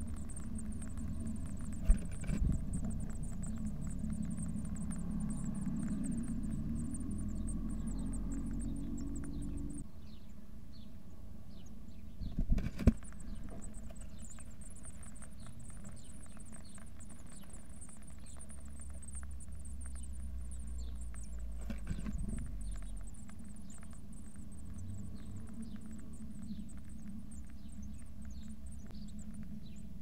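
Blue tit nestlings giving thin, high begging peeps in a wooden nest box. There are sharp knocks and scrabbling about 2, 13 and 22 seconds in as the adult moves about in the box, and a low rumble during the first third.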